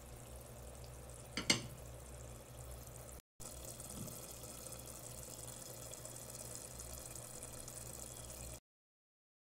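Spinach and minced-meat curry simmering in a pot on a gas stove: a steady bubbling hiss over a low hum, with one sharp metallic clink about a second and a half in. The sound drops out briefly about three seconds in and stops abruptly near the end.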